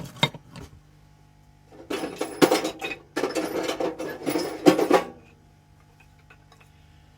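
Metal hand tools clinking and clattering against each other as they are handled and sorted, with a few clicks at the start and then about three seconds of busy rattling.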